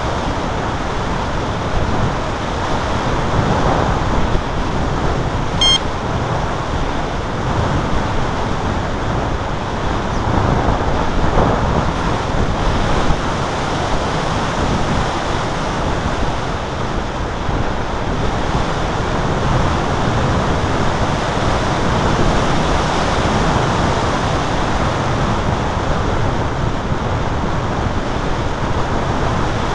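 Steady wind rushing over the microphone, with no motor tone, and a brief high click about six seconds in.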